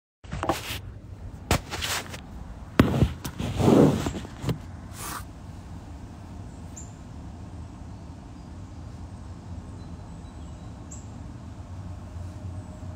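Phone-handling noise inside a car: a run of knocks and rustles over the first five seconds as the phone is moved and settled, then a steady low hum of the car interior.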